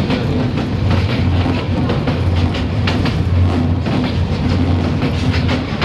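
Passenger train running along the track, heard from on board: a steady low rumble from the running gear with irregular clicks and clatter of the wheels over the rails.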